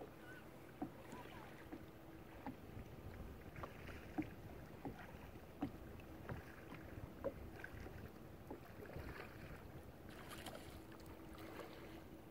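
Kayak moving over a calm lake: faint splashes of water and small knocks against the hull, roughly one a second, over a low steady hiss.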